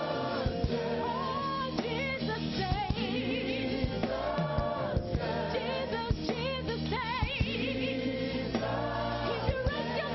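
Gospel choir singing with vibrato over band accompaniment with drums.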